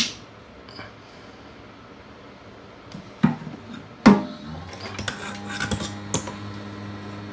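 Small metal repair tools clinking and knocking on the workbench, with sharp clicks at the start and about three and four seconds in. Then a steady hum sets in with light crackling on top: a hot-air rework station's blower starting, ready to lift the phone's power IC.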